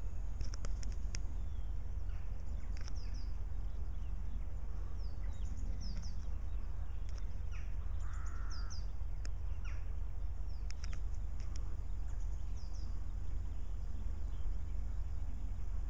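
Small birds chirping in quick high notes throughout, with a single harsh crow-like caw about eight seconds in, over a steady low rumble.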